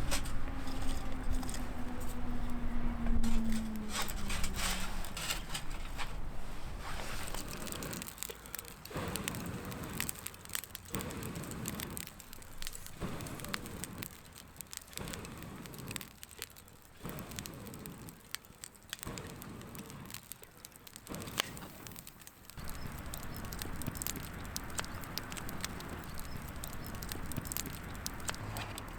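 Wood campfire crackling and popping with dense, irregular snaps. Through the middle, a low rushing noise comes and goes about once a second.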